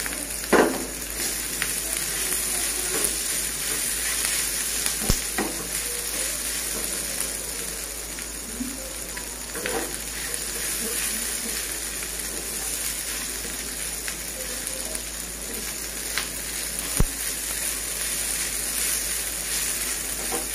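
Spatula stirring a chicken and grated-potato filling in a non-stick frying pan, with a steady sizzle of frying throughout. A few sharp knocks of the spatula against the pan stand out, the loudest about half a second in, about five seconds in and about seventeen seconds in.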